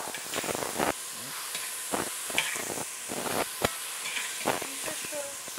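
Onions, garlic and diced tomatoes frying in oil in a steel pot, with a steady sizzle under repeated scrapes of a spoon stirring against the pot.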